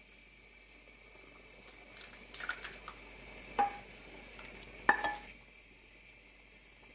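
Wooden spatula scraping a thick beet and tomato dressing out of a frying pan into a steel pot of broth, with a few sharp metallic knocks of pan and spatula against the pot that ring briefly; the loudest knock comes about five seconds in.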